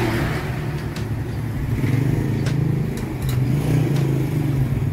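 An engine running steadily, its loudness rising and falling a little, with a few light clicks over it.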